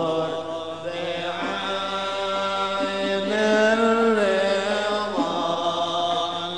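Arabic devotional chanting of a syair (religious poem) in praise of the Prophet, sung in long held notes that glide slowly up and down in pitch.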